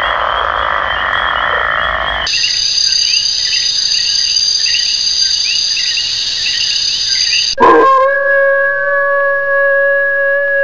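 Frogs croaking in repeated short calls over a steady high-pitched insect drone, after about two seconds of rushing noise. About 7.5 s in, a sudden sharp hit cuts in, followed by one held steady tone.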